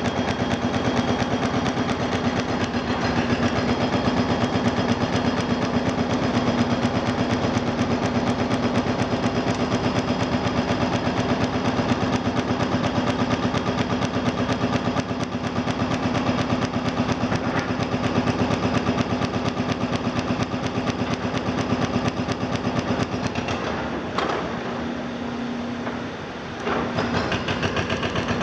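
Tracked demolition excavators at work: a diesel engine runs steadily under a fast, continuous rattle of impacts. About 24 seconds in, the rattle falls away for a couple of seconds, leaving mostly the engine's hum, then it picks up again.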